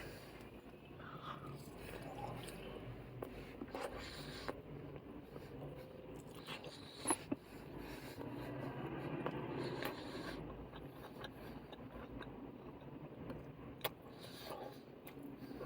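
A person chewing kebab meat, with scattered clicks and scrapes of a spork against a takeaway container.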